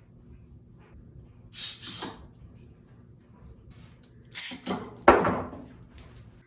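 Woodworking bench sounds: two pairs of short scraping strokes, then a sharp knock about five seconds in that rings away briefly.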